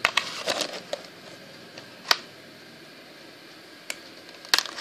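Hands handling a metal multitool card in a clear plastic blister pack: a few crackles and clicks in the first second, one sharp click about two seconds in, then a couple more clicks near the end.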